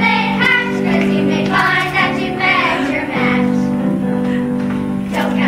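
A group of children singing a musical-theatre song together over instrumental accompaniment.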